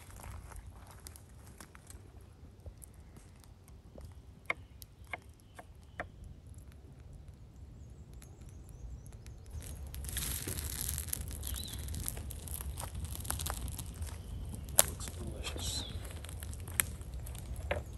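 Knife and food-handling sounds at a wooden cutting board: scattered soft clicks and taps over quiet outdoor ambience. About ten seconds in, a steady hiss comes in under the taps.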